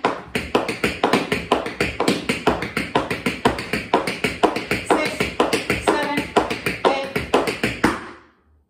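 Tap shoes clicking on a hard floor in a quick, steady run of dig, brush, step patterns, several taps a second, stopping about eight seconds in.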